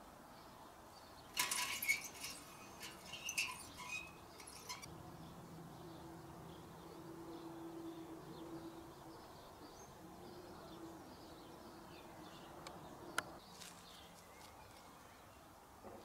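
A cat moving a dead sparrow through low ground-cover plants, giving a few seconds of rustling and crackling clicks. Later a faint low hum and a single sharp click near the end.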